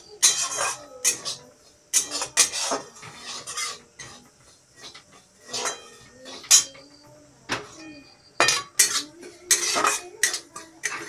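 A metal spatula scraping and clinking against a metal kadai in quick, irregular strokes as dry semolina is stirred while it roasts. The semolina is kept moving so that it does not burn.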